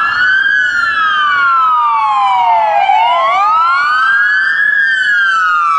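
Police car siren on its wail setting, the pitch slowly rising and falling. Two siren tones sound slightly out of step, their pitches crossing about halfway through.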